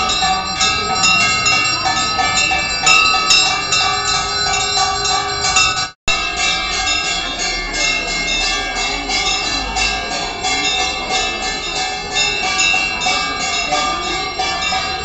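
Temple bells ringing rapidly and continuously for the evening aarti, many quick strikes a second over a clear ringing tone. The sound drops out for an instant about six seconds in, then carries on the same.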